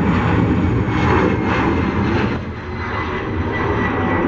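Airbus A319 twin jet engines running at takeoff thrust as the airliner lifts off the runway: a loud, steady rumble with a thin high whine over it.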